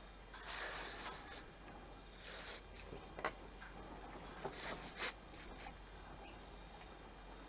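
Gloved fingers handling a small plastic carburetor part: a faint rubbing, rustling noise about half a second in, a shorter one a couple of seconds later, then a few sharp clicks around the middle.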